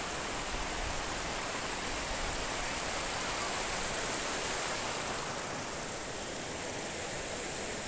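Rushing mountain stream tumbling over rocks, a steady rush of water.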